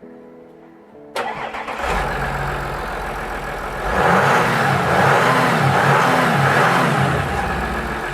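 Audi SQ5's 3.0-litre biturbo V6 TDI diesel starting about a second in and settling to idle, then revved in a series of short blips that rise and fall in pitch.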